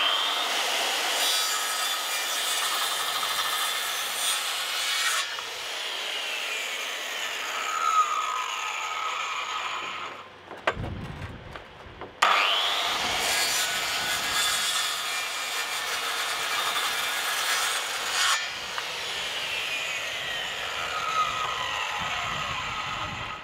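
AEG corded circular saw cutting into the corner of a pine timber bunk frame, in two runs of about ten seconds each with a short stop just before halfway. A falling whine comes late in each run.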